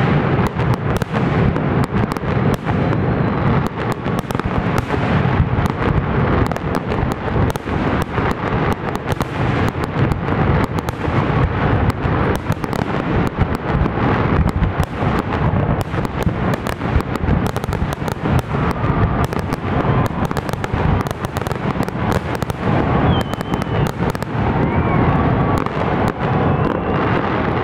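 Fireworks display: aerial shells bursting in a dense, continuous barrage, many booms and sharp cracks every second.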